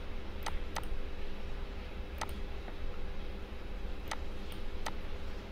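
Computer mouse clicking: five short, sharp clicks at irregular spacing, two close together about half a second in, one about two seconds in, and two near the end, over a faint steady hum.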